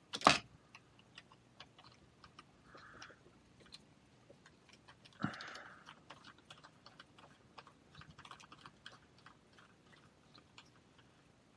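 Small light clicks and ticks of a hand driver and metal and plastic RC parts as screws are turned into an RC truck's aluminium steering rack, with one sharp click right at the start and a couple of brief rustles.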